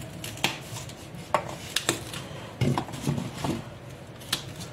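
A small kitchen knife cutting and snapping fresh young broad bean pods by hand, about eight sharp, irregular clicks and crisp snaps.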